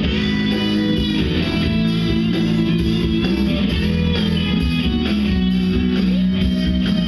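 Instrumental rock: a Parker Fly electric guitar plays a lead melody with string bends that rise, hold and fall back, over a backing track with sustained low notes.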